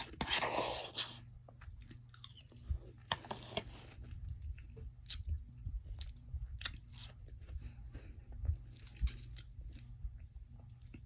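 Soft freezer frost bitten and chewed close to the microphone: a dense crunch in the first second, then scattered small crunches and wet mouth clicks, over a steady low hum.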